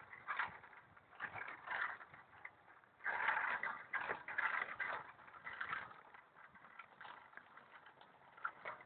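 A child's small bicycle rolling along a paved path, its wheels and frame rattling with irregular scuffs and clicks, busiest from about three to five seconds in.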